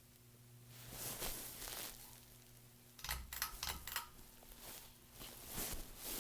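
Hunter Augusta III ceiling fan running with a faint, steady low motor hum, with soft swells of hiss. About three seconds in there is a quick run of sharp clicks.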